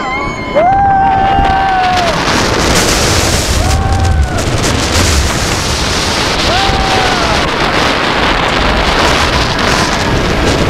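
Wind rushing hard over the microphone on a B&M hyper coaster running at speed, with riders screaming: long held yells about half a second in, around four seconds, around six and a half seconds, and again at the end.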